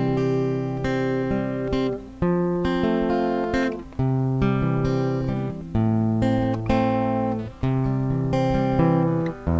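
Background music of an acoustic guitar playing sustained chords, a new chord about every two seconds.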